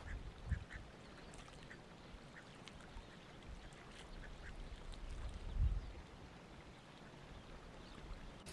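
White domestic ducks giving short, scattered quacks over a faint background, with two low thumps, about half a second in and a little past halfway.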